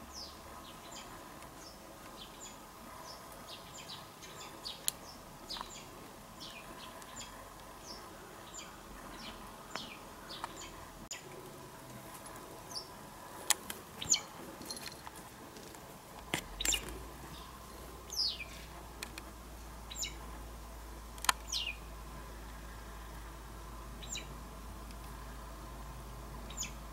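White wagtail giving short, high chirps that drop sharply in pitch, scattered irregularly, with a few sharp clicks louder than the calls.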